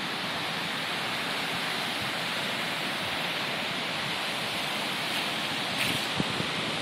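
Steady rushing of the Schoharie Creek in flood, with a few short clicks near the end.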